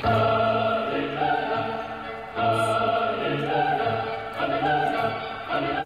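Operatic choral music: voices singing long held chords that start and stop abruptly, with a new phrase swelling in about two and a half seconds in.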